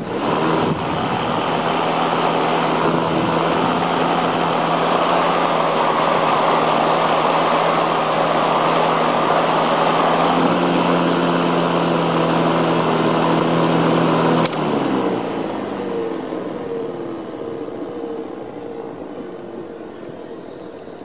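Black & Decker LM175 electric lawn mower's brushed motor and blade starting up and running steadily, pretty quiet, with a steady hum over a whir. About fourteen seconds in there is a click and the motor winds down, its pitch falling. It runs without tripping the breaker now that the bridge rectifier is replaced, with a little wavering in speed that the owner takes as a sign the brushes will soon need replacing.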